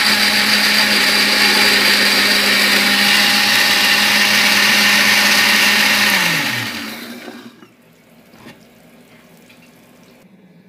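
Countertop blender with a glass jar puréeing a thin raw green-tomato and chile salsa, running steadily at high speed. About six seconds in it is switched off and the motor winds down to a stop, its hum falling in pitch.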